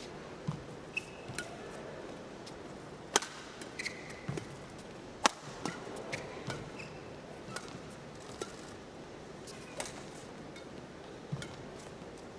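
Badminton rally: rackets strike the shuttlecock with sharp cracks every second or so, the loudest about three and five seconds in. Brief squeaks of court shoes and a low steady arena murmur run underneath.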